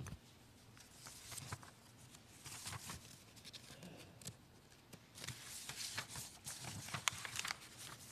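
Faint rustling and crinkling of paper sheets being handled, with scattered small clicks and taps, busier in the second half.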